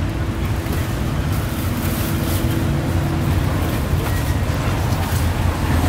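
Street traffic noise: motor engines running steadily, with a steady hum that stops about three seconds in.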